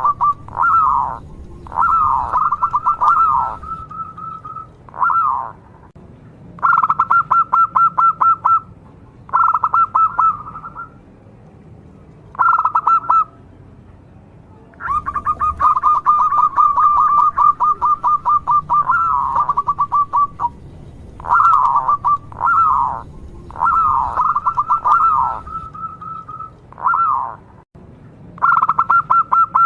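Zebra dove (perkutut) singing: repeated phrases of fast, rolling cooing notes, each phrase a second or two long with short pauses between, and one longer unbroken run near the middle.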